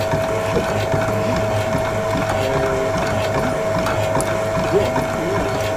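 Motor of a mechanical shooting-stage horse running with a steady, even whine.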